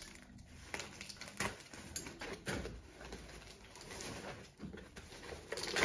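Rustling and crinkling of foam and paper packing around a potted plant being pulled from a cardboard box, in a string of soft, irregular scrapes.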